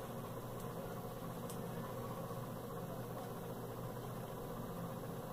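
Steady low background hum with even noise, and a few faint clicks in the first second or two.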